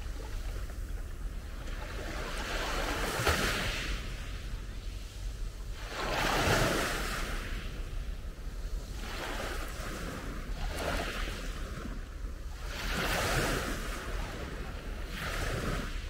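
Small sea waves breaking and washing up a gravelly beach, each wash a swelling hiss that comes and goes about every three seconds.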